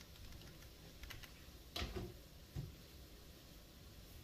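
Quiet kitchen with a few faint clicks about a second in, then two short, soft knocks, from things being handled and set down.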